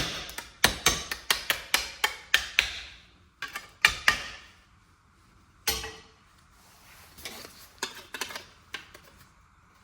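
Hammer blows beating the corner of a home-made switch panel into shape: a quick run of about three sharp strikes a second for the first three seconds, a few single blows after a pause, then lighter taps near the end.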